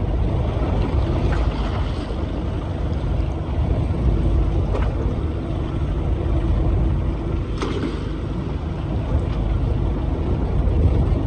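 Fishing boat's engine running steadily, with wind and sea noise, and two faint clicks about five and eight seconds in.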